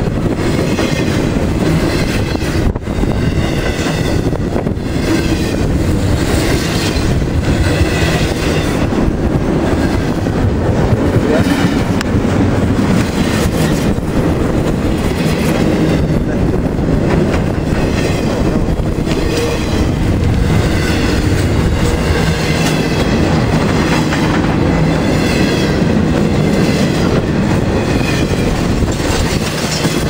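Freight train of containers and highway trailers on flatcars rolling past close by, a steady loud rumble with the wheels clicking over the rail joints.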